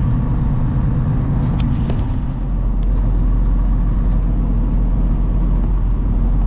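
Semi truck's diesel engine and road noise heard inside the cab, a steady low drone while rolling slowly on a snow- and ice-packed road, with a few faint clicks about one and a half to two seconds in.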